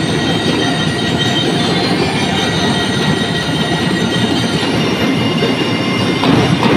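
School drum and lyre corps playing: massed marching snare and tenor drums beating fast and dense, with steady bell-lyre notes ringing over them.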